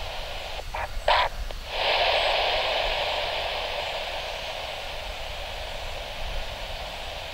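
Air-band radio static: a steady narrow-band hiss with a few short crackling bursts about a second in. A louder burst of hiss opens about two seconds in, an open transmission with no voice, and slowly fades.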